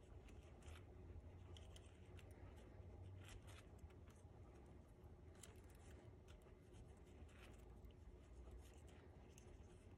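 Near silence with faint, scattered scratching and light clicks: a metal ball stylus being stirred and rolled over a small cardstock flower center pressed into a foam shaping mat.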